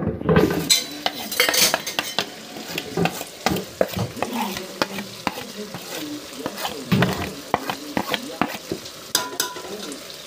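Metal spoon scraping and clinking against an aluminium pot, many quick strikes, as chicken pieces are stirred together with ground melon seed (egusi) and spices, over a steady sizzling hiss from the hot pot.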